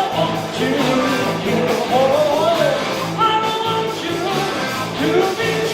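Live rock-and-roll band playing: a lead line of sliding, bending notes over a steady, repeating bass riff and drums.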